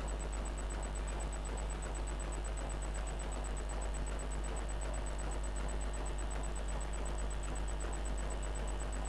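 Steady low electrical hum with a faint, steady high-pitched whine, from a computer power supply running under load on the test bench.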